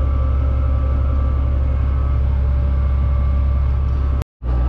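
Fendt 936 tractor's six-cylinder diesel running steadily under load while pulling a seed drill: a deep drone with a steady whine over it. The sound drops out for a split second near the end.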